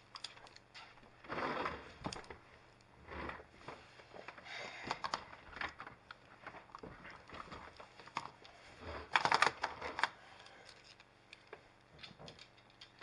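Magnetic building pieces clicking and clattering against each other as they are handled and snapped together, in scattered bursts with a louder clatter about nine seconds in.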